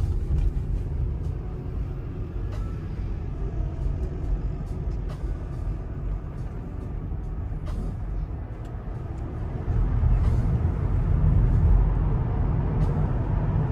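Low road and tyre rumble heard inside the cabin of a moving Waymo Jaguar I-PACE electric car, with no engine note. It grows louder about ten seconds in as the car drives into a tunnel.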